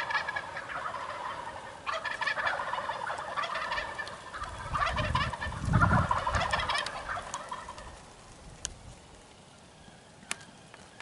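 Wild turkey gobblers gobbling from the roost before daylight: a string of rattling gobbles over the first eight seconds, some overlapping, then quiet with a few faint clicks. A low rumble sits under the gobbles in the middle.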